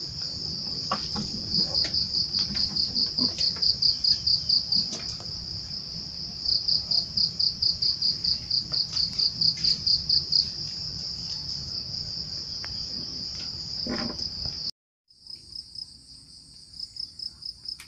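Insects chirping in a steady high buzz that breaks into fast, even pulses in stretches, with a few light knocks and rustles of handled gear in the first seconds. The sound cuts off suddenly about three-quarters through, then a quieter high insect chorus resumes.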